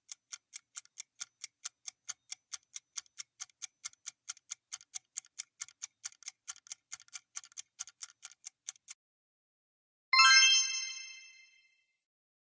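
Quiz countdown-timer sound effect: rapid clock ticking, about four ticks a second, that stops about nine seconds in. About a second later a bright chime rings out and fades, marking time up and the correct answer being revealed.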